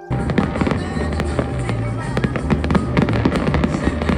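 Aerial fireworks going off: a dense, continuous run of bangs and crackling, cutting in abruptly at the start, over a steady low rumble.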